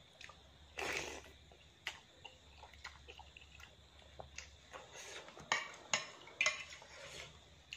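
Metal fork and spoon clinking and scraping against a ceramic plate as noodles are twirled and lifted, with the sharpest clinks near the end. Noodles are slurped in between.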